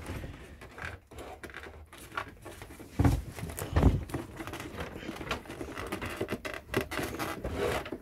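Plastic scraping, scratching and clicking as hands tug at a vacuum hose wand stuck fast in its clip on the body of a Dirt Devil Platinum 1000 upright vacuum cleaner, with two dull thumps about three and four seconds in.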